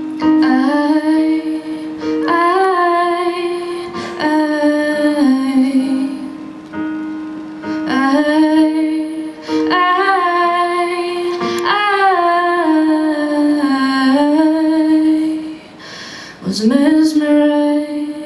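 A woman singing a song live in long held phrases over a steady, sustained instrumental accompaniment.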